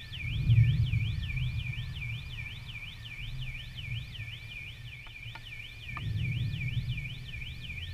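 An electronic alarm siren wailing up and down in a fast, even cycle, about four sweeps a second, over a low rumble that swells near the start and again about six seconds in.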